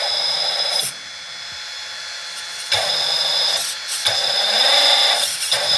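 Brushless electric motor driving the hydraulic pump of a 1/14 scale RC excavator, whirring with a high whine as the pump kicks in on demand. It runs loud for about the first second, drops lower until about three seconds in, then runs loud again with two brief dips.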